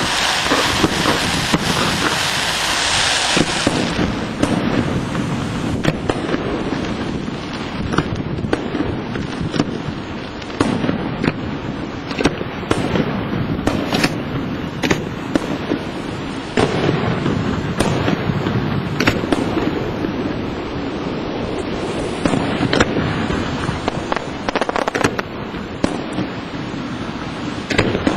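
Aerial fireworks display: a dense, continuous run of shell bursts and bangs. A loud hiss fills the first four seconds before giving way to the bangs.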